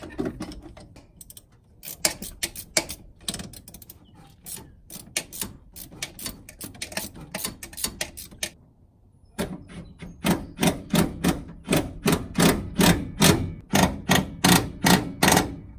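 Ratchet wrench clicking in quick, repeated strokes as the bolts holding the steering column to the firewall are tightened. The clicking stops briefly about eight seconds in, then resumes louder and more even, about three strokes a second.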